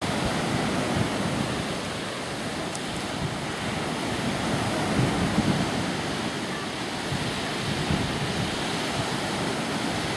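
Small lake waves breaking and washing up a sand beach, with wind rumbling on the microphone.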